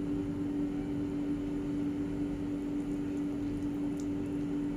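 Steady hum of a running kitchen appliance motor, holding one strong low pitch without change, with a faint tick about four seconds in.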